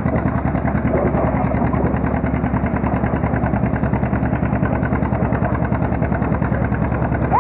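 Antique John Deere two-cylinder tractor engine working hard under load as it drags a pulling sled, its exhaust popping in a fast, even beat.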